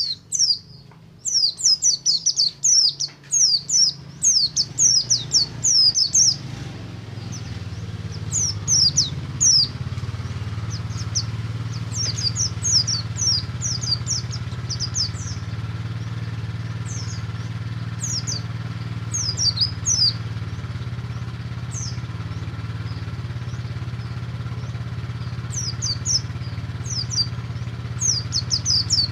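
White-eye (pleci) singing in long, fast runs of high, quickly falling chirps, the continuous 'ngalas' song style used to stir other white-eyes into song. The runs are densest and loudest over the first several seconds. From about six seconds in, a steady low engine-like hum runs underneath the song.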